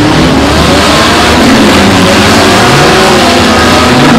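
Several compact-car engines revving at once in a demolition derby, their pitches rising and falling against one another over a steady rush of noise.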